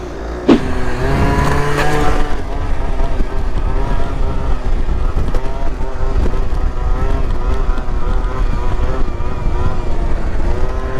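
MBK Booster Spirit 50 cc two-stroke scooter engine revving up about a second in, then held at high revs, wavering slightly, as the scooter rides a rear-wheel wheelie. Low wind rumble runs under it, and there is a single sharp click about half a second in.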